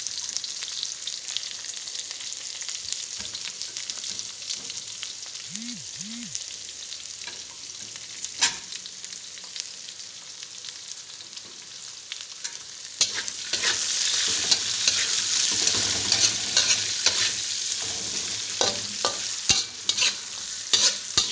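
Sliced onions and whole spices sizzling in hot ghee and oil in a pan. About 13 s in the sizzle gets louder, and stirring adds sharp clicks and scrapes against the pan.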